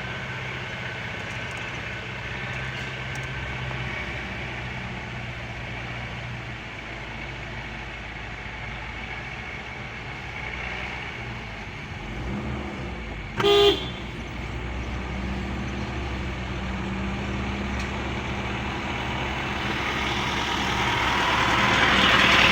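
Motor vehicle driving along a road: steady engine hum with road noise, which grows louder near the end. A little past halfway, a horn gives one short, loud toot.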